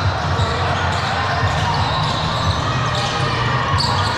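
Basketball game sounds in a gym: a ball bouncing on the court amid a steady wash of spectators' voices and floor noise, echoing in the large hall.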